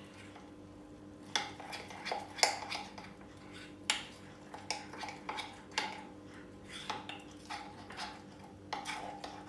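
A spoon stirring thick almond-flour cookie dough, clinking and scraping against the bowl in irregular strokes that begin about a second and a half in.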